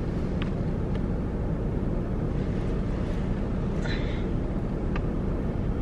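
Steady low rumble of road and engine noise inside a car's cabin while driving, with a few faint clicks.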